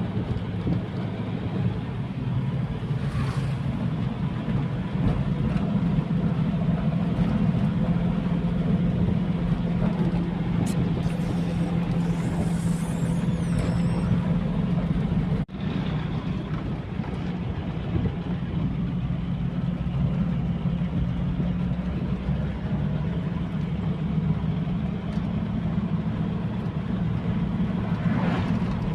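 A motor vehicle's engine running steadily while on the move, with road noise over a constant low hum. About halfway through, the sound briefly drops out at a cut.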